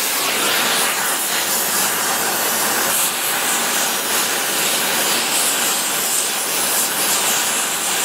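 Gas brazing torch flame hissing steadily as brass is built up on a metal part.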